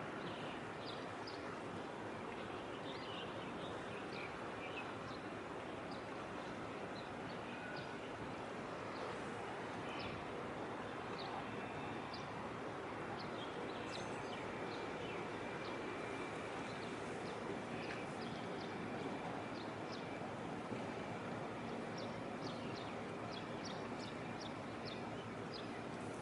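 Steady distant harbour rumble, with small birds chirping in short, high notes scattered throughout and thickest near the end.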